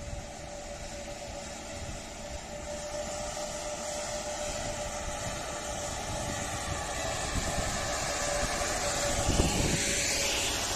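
Czech Railways electric locomotive's cooling blowers running with a steady fan-like hum and one held tone, slowly growing louder, with a brief louder rush near the end.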